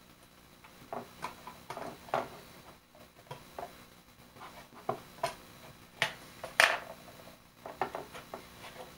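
Small hand tools and metal parts being handled at a workbench: a string of irregular clicks and taps, the loudest a pair about six seconds in.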